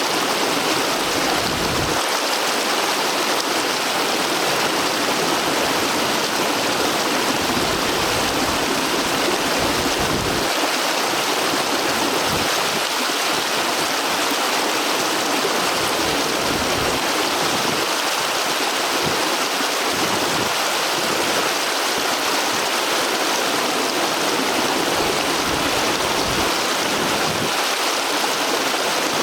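A stream flowing over rocks: steady rushing and splashing of running water, with occasional low gusts of rumble.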